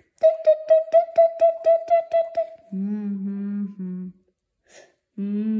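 A person humming a tune: first a quick string of about four repeated syllables a second on one higher note, then two phrases of lower held notes with a pause between them.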